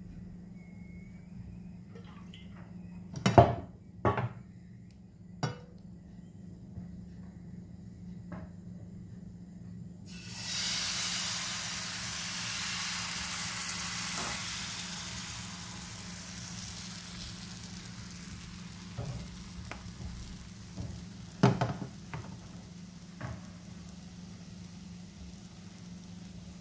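Crepe batter hitting a hot oiled crepe pan: a sudden sizzle about ten seconds in that slowly dies down as the batter spreads and sets. A few sharp knocks of kitchenware come before it, more knocks and clinks follow later, and a steady low hum runs underneath.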